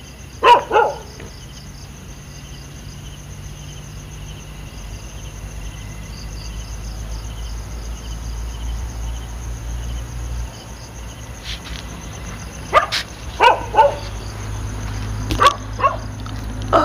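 A dog barking in short bursts: a quick pair about half a second in, then two runs of barks near the end. Crickets chirp steadily underneath, and a low rumble like an approaching vehicle grows louder.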